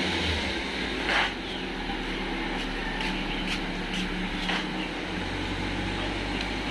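Nissan Sentra engine running at a steady idle now that its dead fuel pump has been replaced with a Denso unit. There is a brief louder rush about a second in and a few light clicks.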